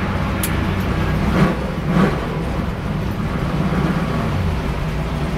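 Stock car engine idling steadily, heard from inside the car's cockpit, with a sharp click about half a second in and two short swells in the engine sound shortly after.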